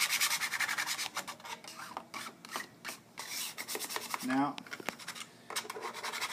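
A plastic ID card scraping over a wet carbon-fiber vinyl decal on a car's trunk panel, squeegeeing the soapy water and air out from under it. The strokes come quick and dense at first, then sparser.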